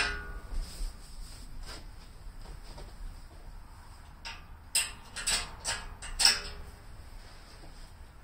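Metal clanks and knocks as a salt spreader is taken off a Gravely walk-behind tractor: a sharp ringing clank at the start, a few lighter knocks, then a quick run of clanks about five to six seconds in.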